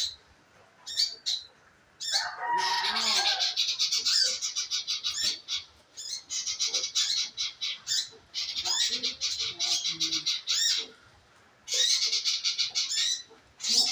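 Manggaran bird singing. A few short sharp calls come first, then about four long bursts of fast, rapidly repeated high chattering notes, each lasting one to three seconds with brief pauses between them.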